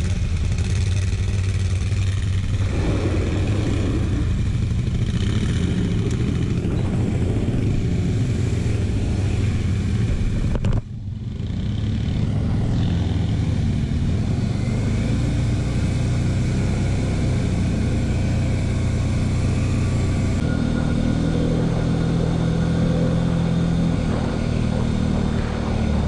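TGB Blade 1000 quad's V-twin engine running and pulling along a gravel track, its pitch shifting with the throttle. The sound breaks off suddenly for a moment about eleven seconds in, then the engine picks up again.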